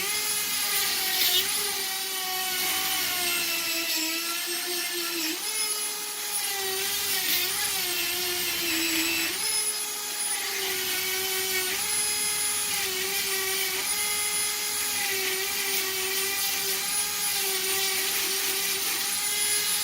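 Dremel rotary tool spinning up at about 25,000 RPM and grinding out the inner lip of a 1/2-inch EMT pull-through elbow with a 60-grit sanding pad. The high whine runs steadily, dipping in pitch several times as the pad bites into the metal.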